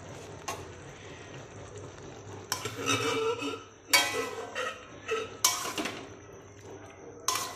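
A metal spatula stirs and scrapes chickpeas and potatoes in masala around a metal kadai, clanking against the pan. The scraping starts about two and a half seconds in, with a sharp clank about four seconds in and another near the end.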